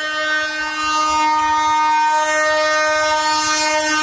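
Electric locomotive's horn sounding one long, steady blast as the train approaches.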